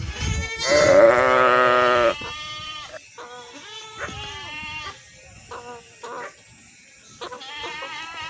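A mixed flock of goats and sheep bleating. One loud, long bleat comes in the first two seconds, then several quieter bleats from other animals overlap until the end.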